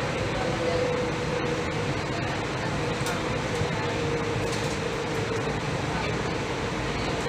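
KL Monorail train running, heard from inside the carriage: a steady rushing rumble with a humming tone that sinks slowly in pitch.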